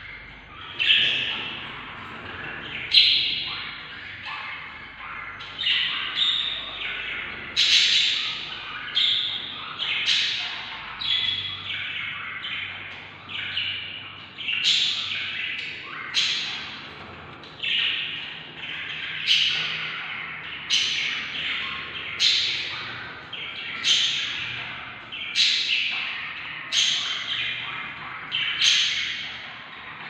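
Budgerigar chicks in a nest box giving repeated squawking begging calls, one about every second and a half, each starting sharply and trailing off, with other chicks' calls overlapping.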